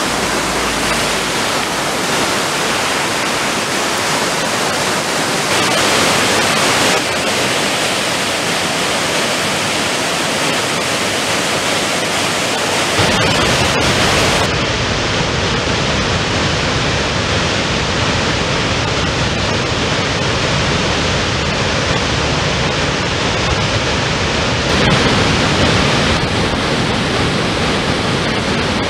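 Steady rush of water falling from a waterfall pouring off a cliff. About 13 seconds in it changes to a fuller, deeper rush of floodwater pouring down a dam spillway opened to release flood water.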